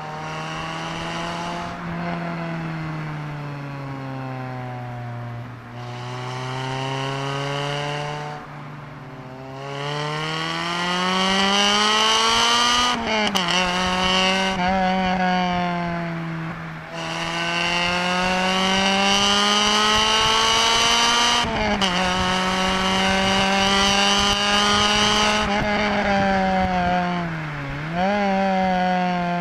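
Honda Civic Type R EP3's 2.0-litre four-cylinder i-VTEC engine, heard from inside the cabin. It is winding down at first, then accelerating hard through the gears: the revs climb, drop sharply at each upshift, and climb again several times over.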